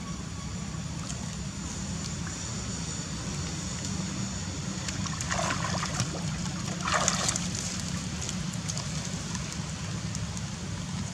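Shallow muddy creek water trickling and sloshing as a baby macaque wades, over a steady low rumble. Two short, louder bursts of noise come a little past the middle.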